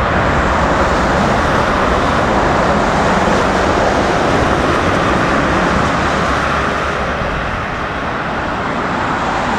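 Jet airliner engines running loudly as a landing plane passes, a steady rushing noise that eases a little near the end.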